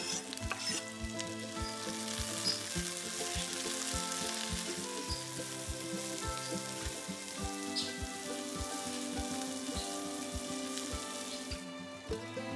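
Food sizzling in hot oil in a frying pan, a steady crackling hiss that dies down near the end, over background music with a steady beat.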